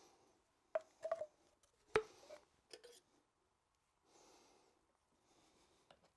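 Light clicks and knocks of PVC drain fittings and cans being handled, the sharpest about two seconds in, followed by softer rustling.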